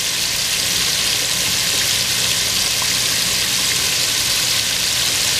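Flour-coated baby back ribs deep-frying in hot oil, a steady dense sizzle and crackle of vigorously bubbling oil.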